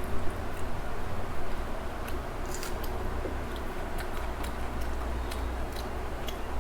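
A person eating close to the microphone: chewing, with scattered small wet mouth clicks, over a steady low hum.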